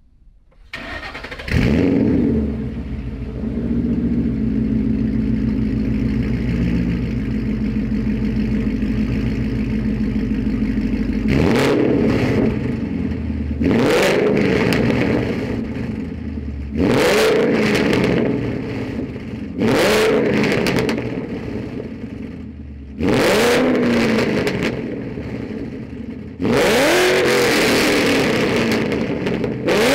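2012 Ford Mustang GT's 5.0 L V8 through Borla long-tube headers, an off-road X-pipe, an ATAK axle-back and a deleted resonator. It starts up with a flare about a second in, settles to a steady idle, then is revved six times in short blips, the last beginning near the end.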